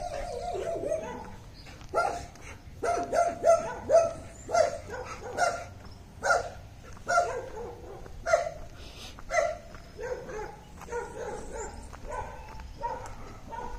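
A dog barking repeatedly, short barks coming about once or twice a second, some of them drawn out and falling in pitch.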